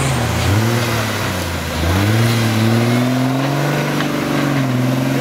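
Off-road buggy engine revving hard under load while climbing a steep dirt bank. The revs rise, sag for a moment just before two seconds in, then climb again and hold.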